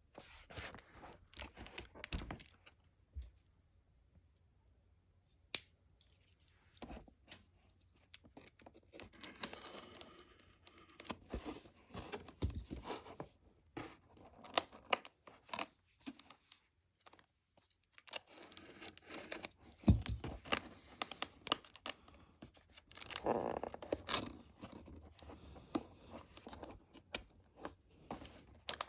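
A laptop's cardboard shipping box and its packaging being opened by hand: tearing, rustling and scraping mixed with many sharp clicks and taps, with a short quiet pause a few seconds in.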